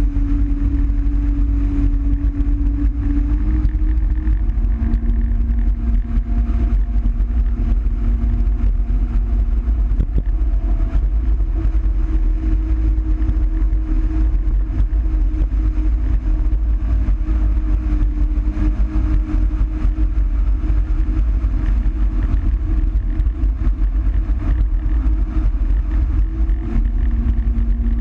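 Jet ski engine running steadily at speed, its pitch dropping and rising a little a few times with the throttle, over a heavy rush of wind and water spray.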